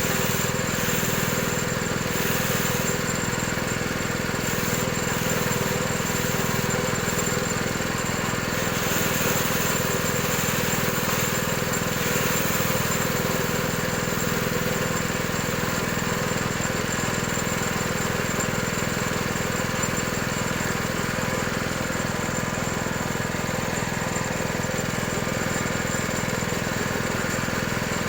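Coconut husk shredding machine running steadily, its engine or motor holding one even pitch throughout.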